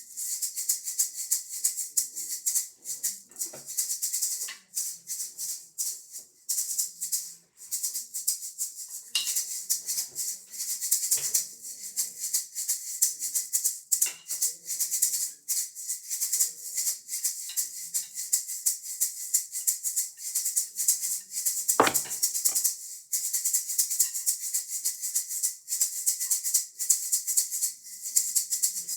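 Fast, continuous maraca-like shaking, rattling in a quick rhythm, with a few louder knocks.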